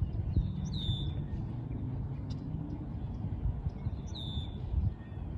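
A bird gives two short, high chirps about three seconds apart over a steady low rumble.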